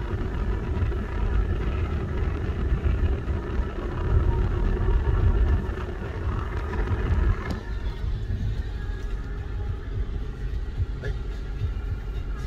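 A car driving on an unpaved road through fields, heard from inside the cabin: a steady low rumble of engine and tyres on the rough surface, easing a little about halfway through.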